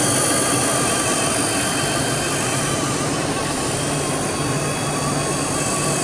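Blade mCPX micro collective-pitch RC helicopter's motors and rotors whining steadily as it lifts off the rooftop and climbs.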